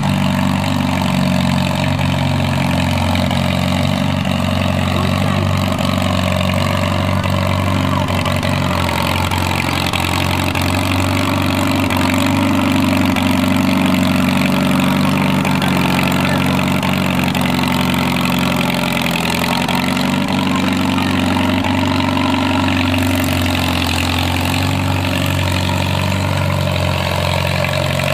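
Farmall tractor engine running steadily while pulling a spring-tine harrow through loose soil, its pitch and loudness rising slightly about midway.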